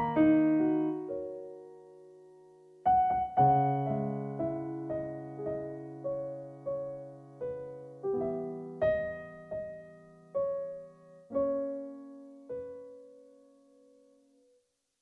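Solo piano playing a slow, gentle piece: a falling run of notes that dies away, then after a short pause a new phrase of single notes over held low chords, fading out near the end.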